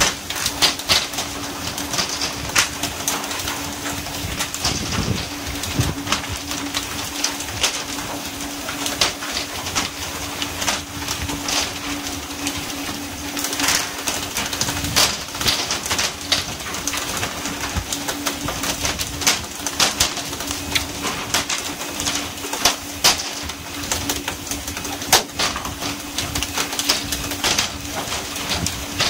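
Pole-and-line tuna fishing on a working boat's deck: a constant rush of water spray along the hull, a steady low hum from the boat, and frequent irregular sharp slaps and knocks as tuna are jerked aboard and land on the deck.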